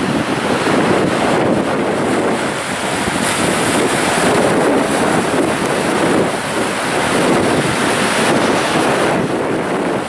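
Sea surf: small waves breaking and washing over rocks, a continuous rushing that swells and eases as each wave comes in.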